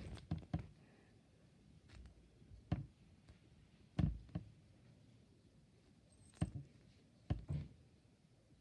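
Scattered short taps and knocks of small objects being handled, about eight of them, the loudest about four seconds in.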